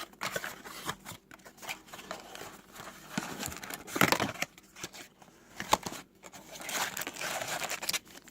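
Plastic trading-card pack wrappers crinkling in irregular bursts as packs are handled and opened, the loudest about four seconds in.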